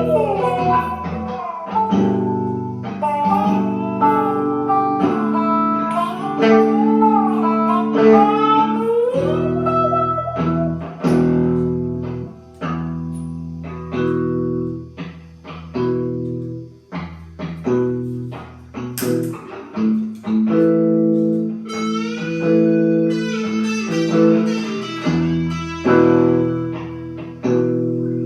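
Blues music: guitar chords played in a steady rhythm under a bending, sliding lead melody.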